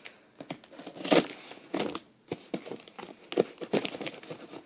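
Packaging being handled: crinkling and rustling with irregular sharp crackles, loudest a little over a second in and again a little past three seconds.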